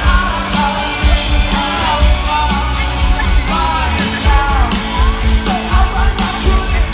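Rock band playing live, with singing over drums and guitars.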